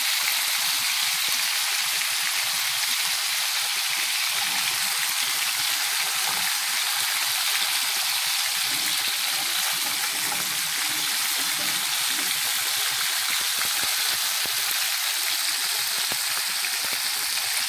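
Flour-dredged rotan (Amur sleeper) fish frying in oil in a pan: a steady, even sizzle.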